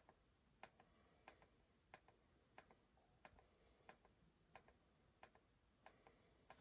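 Faint, evenly paced clicks of a TV remote's button, about one press every two-thirds of a second, each a sharp click followed by a softer one, as the highlight steps down a menu list one item per press.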